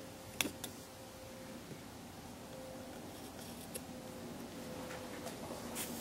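A metal drawing compass being lifted off and handled over a wooden board: one sharp click about half a second in, then a few faint light ticks over a quiet room with a steady low hum.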